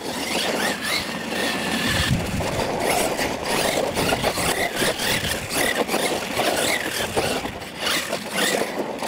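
Losi LMT radio-controlled monster truck driving on dirt: its brushless electric motor whines, rising and falling in pitch with the throttle, over the rush of its tyres spinning and skidding on the loose dirt.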